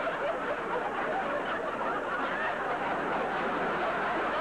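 Audience laughing and chattering steadily, many voices blended together with no single clear speaker.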